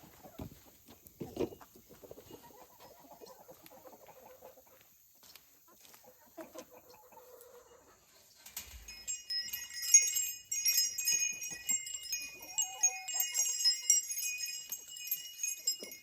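Wind chimes tinkling, many clear high tones struck irregularly and overlapping, starting about halfway through and loudest after that. Faint chicken clucking can be heard before the chimes start.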